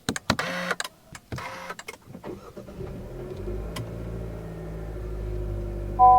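Car interior sounds: clicks and two short whirring bursts, then a car engine starts about three seconds in and settles into a steady low idle. A brief tone sounds near the end.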